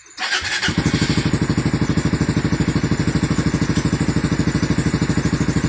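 Suzuki Raider 150 Fi motorcycle's single-cylinder engine being started: a brief crank about a fraction of a second in, then it catches and settles into a steady, evenly pulsing idle.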